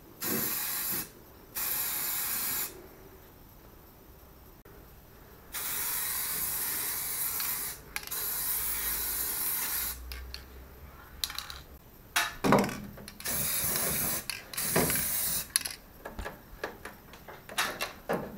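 Aerosol can of yellow enamel spray paint hissing in short bursts of one to two and a half seconds, several times over, as panels are marked with crosses. Sharp clicks and knocks fall between the later bursts.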